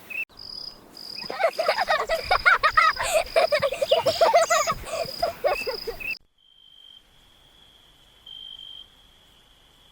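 Outdoor nature sounds: a high insect-like trill with dense chattering calls over it that stop abruptly about six seconds in, leaving one steady, faint, high trill that swells briefly twice.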